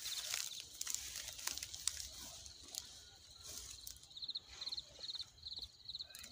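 Dry grass and stubble crunching and rustling underfoot, with an insect chirping in short high trills about twice a second, mostly in the second half.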